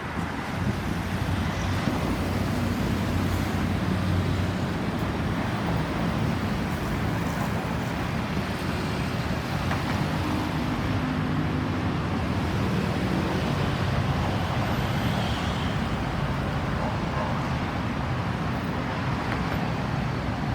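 Road traffic: vehicle engines and tyres of passing cars make a steady rumble, with no siren heard.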